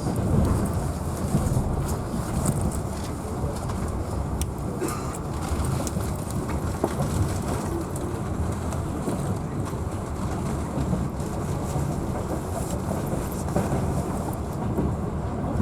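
Passenger train running, heard from on board: a steady rumble of the wheels and carriage with scattered sharp clicks.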